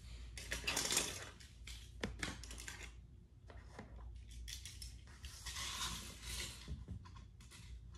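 Wooden toy train cars being handled by hand on a wooden track: scattered clicks and light knocks, with a longer scraping rustle about a second in and another around six seconds.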